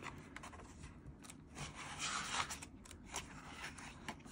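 Pages of a K-pop album photobook being turned by hand: soft paper rustling and sliding under the fingers, with a few light ticks and the longest swish about two seconds in.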